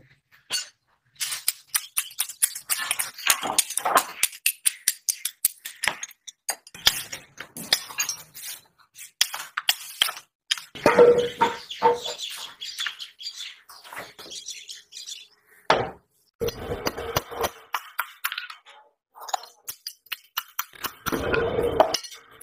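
Metal parts clinking and rattling: freshly cast scissor handles and steel blade blanks knocking together as they are handled, with many sharp clicks and a few louder rattling stretches.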